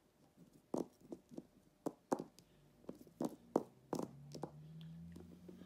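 Hard plastic Schleich animal figurines being hopped across a cloth-covered table: a string of light, irregular taps and knocks, about two or three a second.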